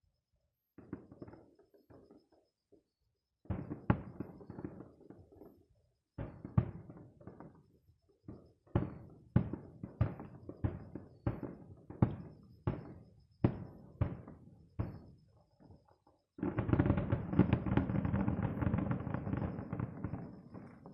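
Aerial fireworks shells bursting, each boom followed by a rolling tail. A few separate bursts give way to a run of about ten booms in quick succession, then a dense, continuous barrage of bursts over the last four seconds that stops abruptly.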